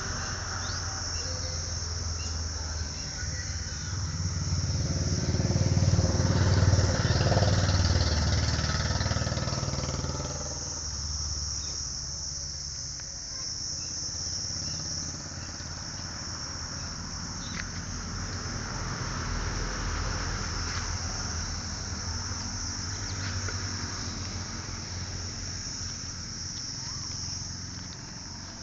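A steady, high insect chorus of crickets runs throughout. A low motor-vehicle rumble swells about four seconds in, is loudest around seven seconds, and fades away by about eleven seconds, with a fainter low hum returning later.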